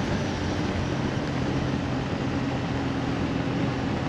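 Honda CB150 motorcycle cruising at a steady speed: an even engine hum under a constant rush of wind noise on the microphone.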